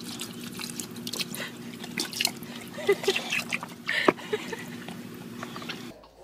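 A thin stream of water trickling and splashing into a plastic water table while a dog laps at the water, over a steady low hum.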